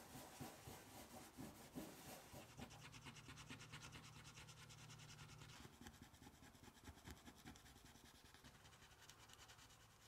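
Faint, quick, repeated scraping of a flat-bladed tool working white residue off a small metal dial plate.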